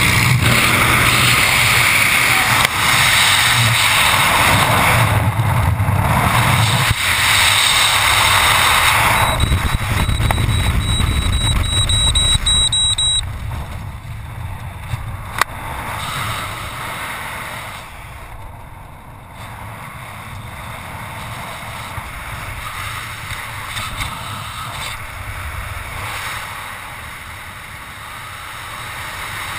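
Loud rushing wind on a helmet camera's microphone during a skydive exit and freefall. About thirteen seconds in it drops to a softer, steady wind hiss once the parachute canopy is open. A faint high tone sounds for a few seconds just before the drop.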